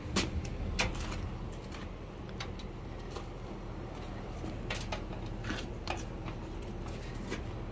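Mini-split outdoor condenser unit running with a steady low hum, smooth and quiet, with several light clicks and taps scattered through.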